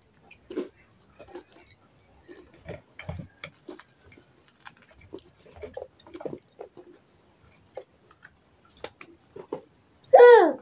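Close mouth sounds of a man eating samosas: wet chewing and lip smacking with scattered small clicks at irregular intervals. Near the end, a short loud voice slides down in pitch.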